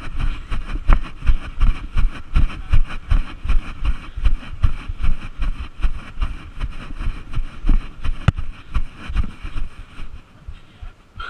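Wind buffeting the microphone: a low rumble broken by many irregular thumps, with one sharp click about eight seconds in.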